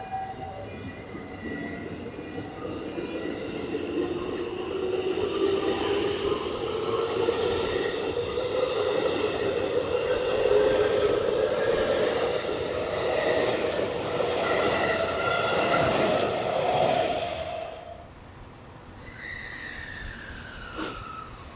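Electric train accelerating away from the platform, its traction motor whine climbing steadily in pitch and growing louder for about 17 seconds, then dropping away suddenly. Near the end a fainter whine falls in pitch.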